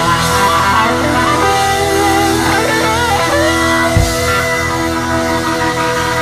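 Background music led by guitar, with sustained and bending notes; a deep thud about four seconds in.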